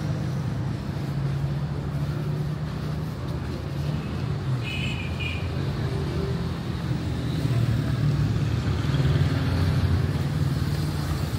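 City street traffic: car engines running close by, growing louder near the end as a car moves past at close range. Two short high beeps come a little under halfway through.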